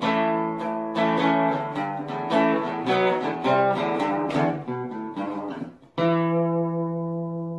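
Outro music on acoustic guitar: strummed and picked chords, then a final chord struck about six seconds in that rings on.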